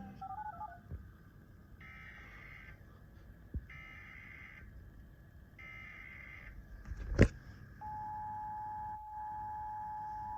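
Emergency Alert System alert: three short bursts of warbling SAME header data tones, about two seconds apart. A sharp click comes about seven seconds in, and a second later the steady two-tone EAS attention signal starts.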